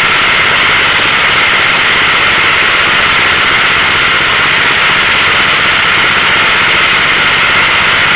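Tecumseh 12 hp riding-mower engine running steadily on its newly fitted replacement carburetor, at a constant speed with no surging or stalling.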